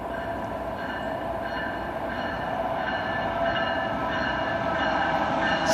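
Approaching freight train led by a GE ES44DC diesel locomotive, its engine rumble growing steadily louder, with several steady whining tones over it.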